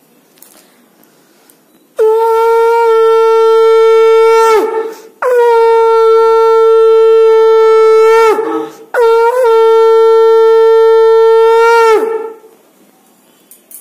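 Conch shell (shankha) blown in three long, steady blasts of about three seconds each, the pitch sagging as each blast dies away: the customary three blasts of a Hindu puja.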